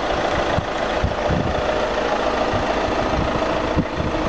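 A vehicle engine idling steadily, with general street noise and irregular low rumbling.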